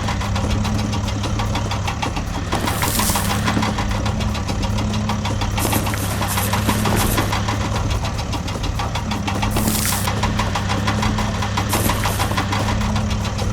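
Engine of a construction vehicle running steadily with a fast rattle, and a short hiss breaking in every three to four seconds.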